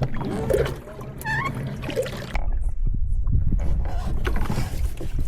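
Sounds of a kayak out on the water: a loud, uneven low rumble with scattered light knocks that comes in about two seconds in, after a stretch of faint voices.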